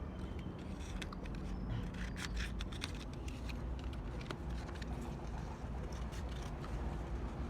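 Scattered light clicks, scrapes and rustling from hands handling small generator carburetor parts, busiest about two to three seconds in, over a steady low background rumble.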